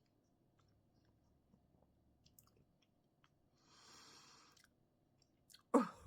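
Quiet, wet mouth clicks of someone chewing a homemade deviled egg. A soft hiss lasting about a second comes about two-thirds of the way in, and a short, loud throaty vocal sound follows near the end.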